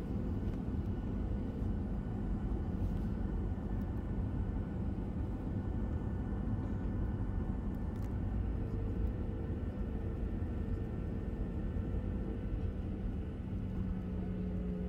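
Cabin noise of a Boeing 737-700 rolling on the ground, heard from a seat over the wing: a steady low rumble of the CFM56 jet engines and airframe. A steady engine hum comes in about halfway, and a lower hum grows stronger near the end.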